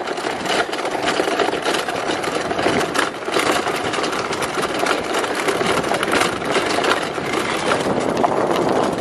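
Pedal go-karts rolling over a gravel road: a steady, dense crunching of tyres on gravel.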